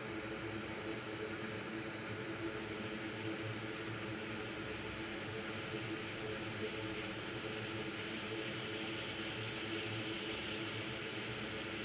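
Hot air rework station blowing steadily onto the fluxed logic board: a constant airy hiss over a low hum, a little brighter near the end.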